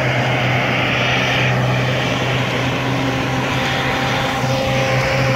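Off-road SUV engine held at steady revs under load, with tyres spinning and churning through snow as the vehicle is pulled up an icy slope on a tow strap.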